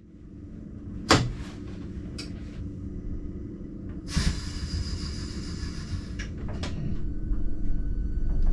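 Inside the cab of a Stadler ABe 4/8 electric railcar: a sharp click about a second in and a lighter knock soon after, then a hiss lasting about two seconds with a couple of clicks after it. A low rumble with faint steady whining tones grows louder near the end as the railcar gets under way.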